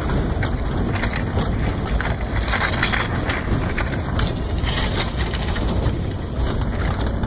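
Wind buffeting the microphone over the steady rumble of a vehicle driving on a snowy road, with scattered crackles.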